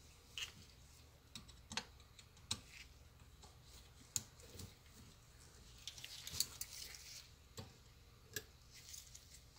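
Faint, scattered clicks and small taps of a screw, nut and plastic bracket being handled and fitted to a headlight projector, with a short run of rustling ticks a little past the middle.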